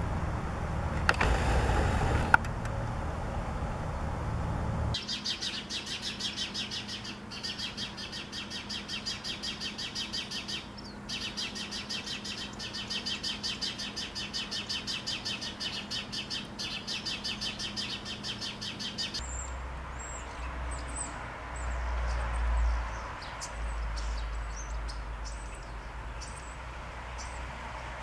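Outdoor ambience with birds chirping, changing abruptly twice: first a low rumble with two sharp knocks, then a steady, rapidly pulsing high chirring for about fourteen seconds, then scattered short high chirps over a low rumble.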